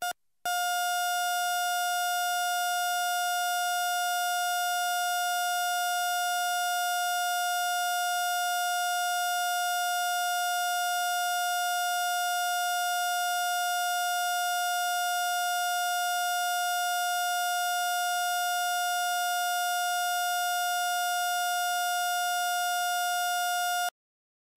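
Heart-monitor flatline: one unbroken electronic beep tone, held steady for over twenty seconds before cutting off abruptly near the end. It is the sign that the patient's heart has stopped.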